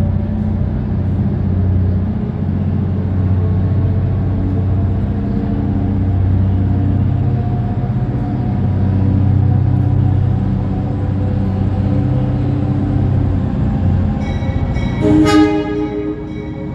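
New York City subway train running with a steady low rumble; near the end a short horn blast sounds over it.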